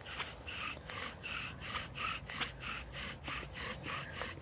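Bow-drill fire-lighting: a wooden spindle spun back and forth by a bow, grinding and squeaking in its hearth board in an even rhythm of about three strokes a second.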